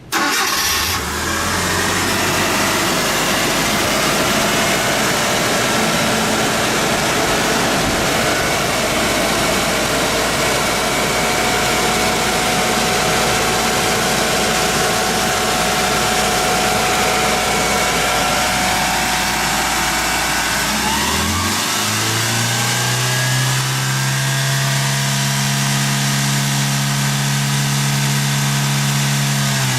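Mitsubishi 4G63 2.0-litre four-cylinder petrol engine of a Canter Guts compressor truck running with its air compressor, coming in suddenly at a low steady speed. About two-thirds of the way through, the engine speed rises smoothly and holds at a higher steady pitch.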